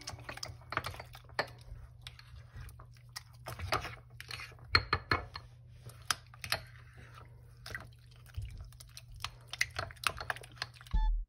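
Metal spoon stirring wet, water-soaked oats in a ceramic bowl: irregular clinks and scrapes against the bowl with wet, sloppy mixing sounds, over a faint steady low hum.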